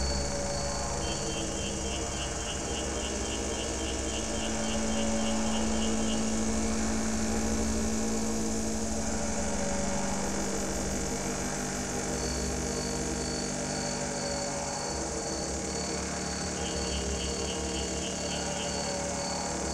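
Electronic drones from a sound installation that turns a meteorite's magnetic field into sound: layered steady tones over a flickering low hum, with a strong low tone swelling for several seconds in the middle. A rapidly pulsing high beep comes in twice, and a thin high steady tone joins in the second half.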